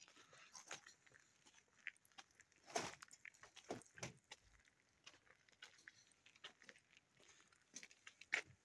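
Faint, irregular crunches and clicks, like footsteps on gravel and loose stone, the loudest about three seconds in and again near the end.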